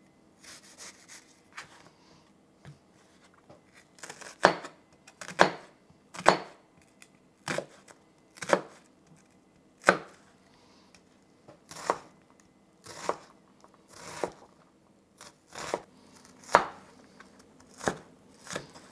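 Chef's knife cutting an onion on a wooden cutting board: separate cuts landing on the board about once a second, faint at first and louder from about four seconds in.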